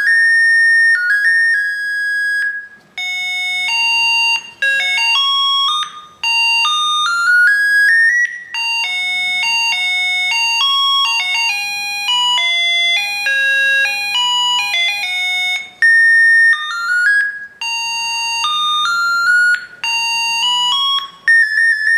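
Homemade doorbell circuit's melody IC playing an electronic tune through its small speaker, one note at a time, with a few short breaks between phrases.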